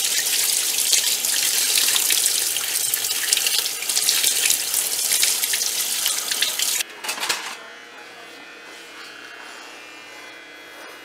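Kitchen faucet running onto a gutted fish held in the hands over a stainless steel sink, water splashing as the fish is rinsed. The running water stops abruptly about seven seconds in, leaving a quiet, steady low hum.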